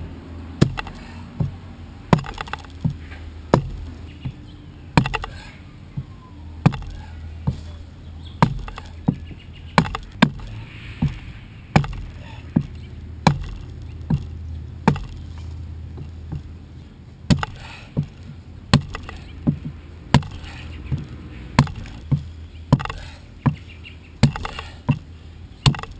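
Adze chopping into the outside of a log dugout canoe hull to hew down a bulge: steady, sharp strikes of steel biting wood, about one every three-quarters of a second, with a short pause just past the middle.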